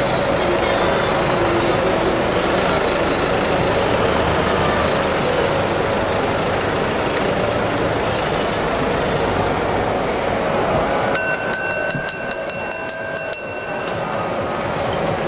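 Steady street din from a busy market street. Near the end a small metal bell rings in quick repeated strokes for about two seconds.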